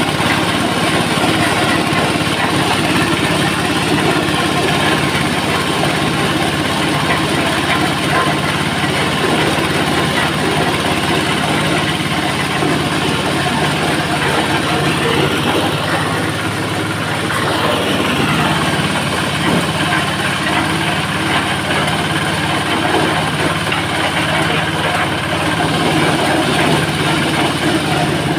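Jumbo double-blower corn sheller running steadily, its engine's hum under a dense rush of noise from the shelling and blowers.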